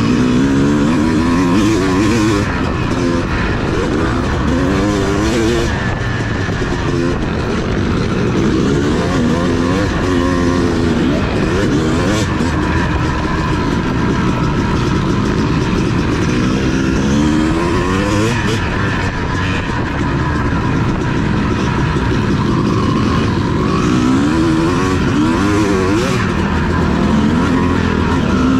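Motocross motorcycle engine running hard, its pitch climbing and dropping again and again as the bike accelerates and shifts through the gears.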